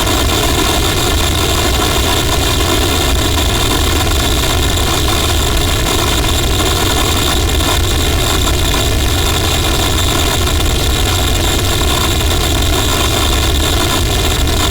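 Harsh noise wall: a loud, unchanging mass of distorted electronic noise with a heavy low rumble and steady held tones above it.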